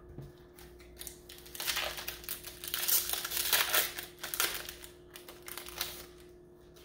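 Plastic wrapper of a Magic: The Gathering booster pack crinkling as it is opened and the cards are pulled out, loudest in the middle and dying away near the end.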